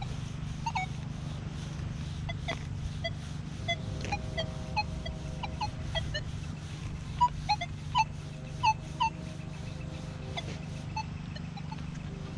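Nokta Legend metal detector's audio answering targets as its 6-inch coil is swept: a string of short beeps at varying pitch, with a few held lower tones, the loudest beeps coming in a quick cluster past the middle. A steady low hum runs underneath.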